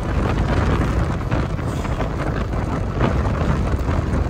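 Steady wind noise buffeting the microphone over the low rumble of a car driving along a road.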